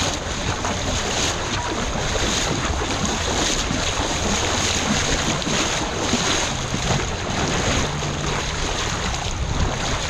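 Lazy-river water sloshing and lapping close to the microphone as it drifts with the current, with wind noise rumbling on the microphone; steady throughout.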